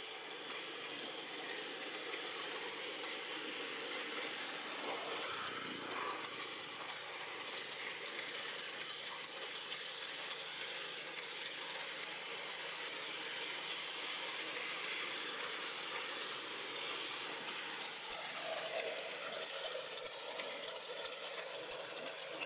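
Steady outdoor ambience: a continuous high-pitched hiss with a thin, steady high whine, and a few faint clicks near the end.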